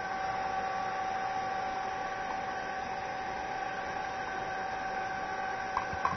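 Hair dryer running steadily: an even rush of air with a constant whine. Two short knocks near the end.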